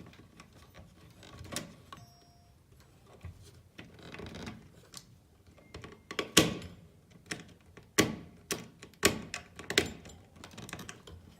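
Irregular sharp clicks and knocks from tools and wires being handled at a doorbell chime's wiring terminals, sparse at first and louder and more frequent from about halfway through.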